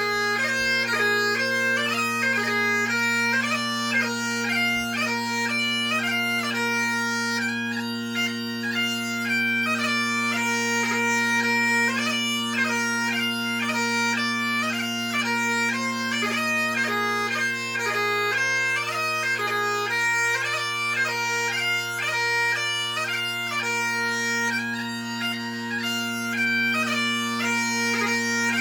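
Great Highland bagpipe played solo: steady bass and tenor drones under a fast chanter melody with rapid grace-note ornaments, running without a break.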